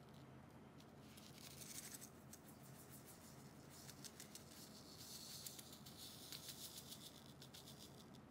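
Faint hiss and patter of fine sand grains sliding off a tilted sheet of paper, in a short spell about a second in and a longer one about five seconds in.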